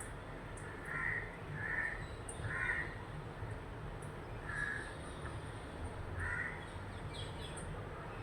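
A bird giving short, harsh, caw-like calls, five of them, spaced about a second or more apart.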